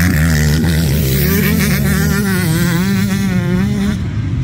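Motocross dirt bike engines running and revving. Their pitch rises and falls, wavering most between about two and four seconds in.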